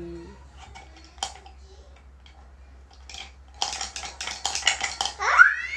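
Small stones clicking and clattering together: scattered clicks, then a dense rattle starting about three and a half seconds in. Near the end a child's voice rises sharply in pitch.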